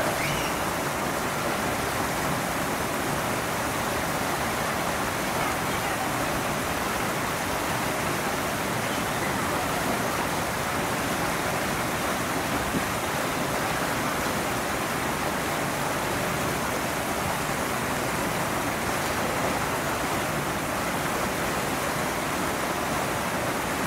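Steady rushing background noise with no distinct events, with faint indistinct voices mixed in.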